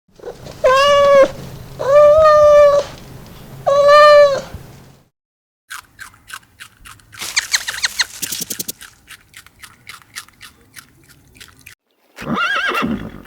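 A cat meowing three times, each meow long and even in pitch, followed by a run of rapid clicks and a short animal call near the end.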